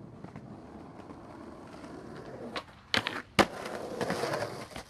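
Skateboard wheels rolling on concrete, growing louder, then two sharp cracks about three seconds in as the board pops and lands on a concrete ledge. A grind follows, scraping along the concrete ledge for about a second and a half.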